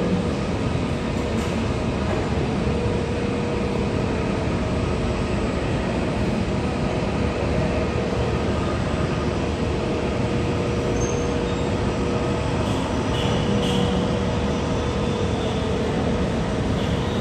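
Jet aircraft engines running steadily: a constant noise with a steady hum in it, unchanging throughout.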